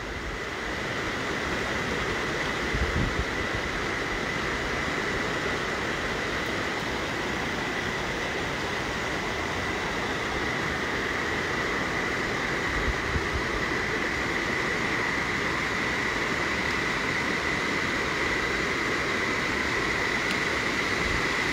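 Steady hiss of rain and running floodwater, an even wash of noise with no distinct events. A thin, steady high tone runs underneath.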